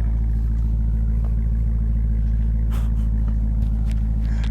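A car engine idling with a steady, deep rumble.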